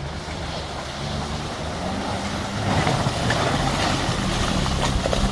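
Off-road 4x4 engine running, louder about halfway through as it is given more throttle.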